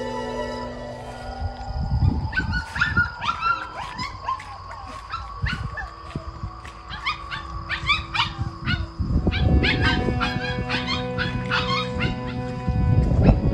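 A puppy wailing: many short, high-pitched cries in quick succession, densest over the first half and then fewer, with some low muffled thuds. Background music with long held tones plays throughout.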